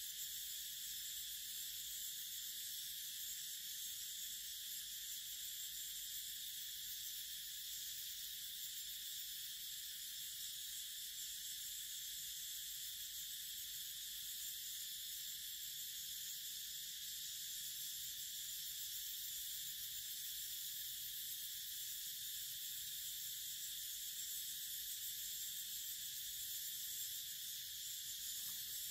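Steady insect chorus, an even high-pitched drone that does not change.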